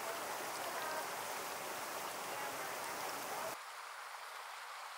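Steady rush of a small creek flowing over rocks. About three and a half seconds in it cuts suddenly to a quieter, thinner rush with less low rumble.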